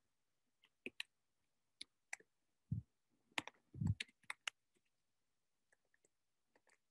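Irregular light clicks of computer keyboard keys being typed on, with two louder dull thumps near the middle.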